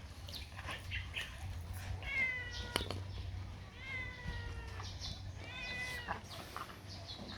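A puppy whining in three drawn-out, high-pitched cries, the first about two seconds in.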